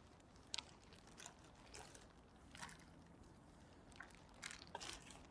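Near silence, broken by about seven faint, brief ticks and small water sounds.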